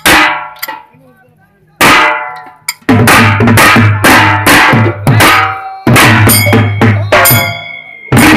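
Dollu barrel drums and a smaller stick-beaten side drum played together by a folk drum troupe. A few separate strikes come first, then the whole group drums in a loud, fast rhythm from about three seconds in, with a short break near six seconds.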